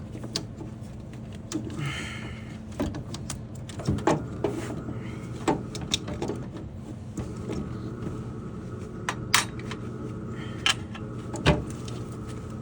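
Irregular clicks and knocks of plastic and metal parts being handled as a replacement water adjustment valve is worked into place inside a Navien tankless water heater, over a steady low hum.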